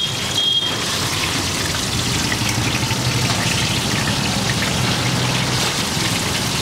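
Hot oil sizzling steadily in a large shallow frying pan as pieces of masala-coated pomfret fish fry, with a low steady hum underneath.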